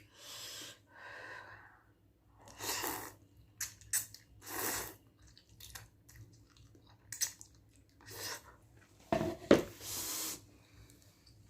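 A person chewing and eating spicy Korean instant food, with short breathy bursts between mouthfuls, the loudest about nine and a half seconds in; the breathing comes from the chilli heat.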